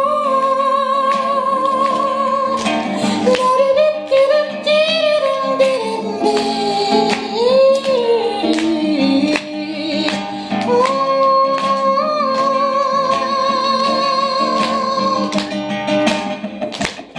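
A woman singing long held notes with vibrato and sliding pitch over a strummed acoustic guitar. Her voice stops near the end, leaving the guitar strumming on its own.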